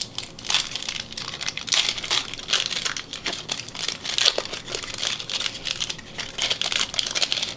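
A 1991 Upper Deck football card pack being torn open by hand: its wrapper crinkling and crackling in quick, irregular bursts.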